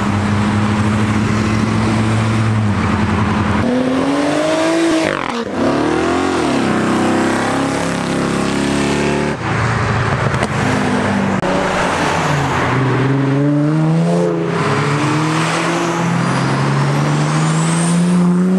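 Modified cars with loud aftermarket exhausts accelerating hard away one after another. An engine holds a steady note, then revs up in rising sweeps with short drops between gears. After a break about halfway, another car climbs through the gears, louder near the end as it passes close.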